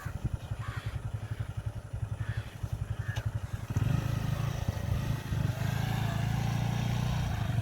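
Enfield Fury's two-stroke single-cylinder motorcycle engine idling with a low, pulsing putter, then opened up about four seconds in and running faster and louder.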